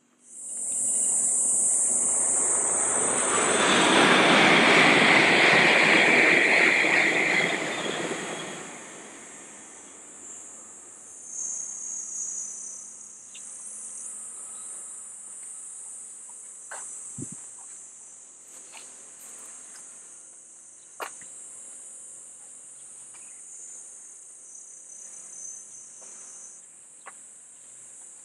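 A train passing on an elevated railway viaduct: a rushing noise that starts suddenly, swells to a peak about five seconds in and fades away by about ten seconds. A steady high insect drone goes on throughout, with a few faint clicks in the second half.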